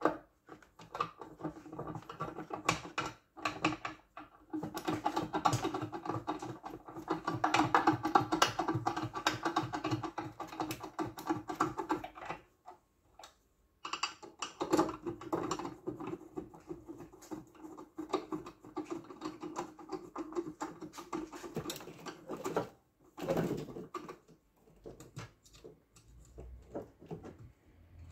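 Dense, irregular clicking and rattling of hand tools and small parts being worked during reassembly of an electric car charger, pausing briefly twice and thinning out near the end.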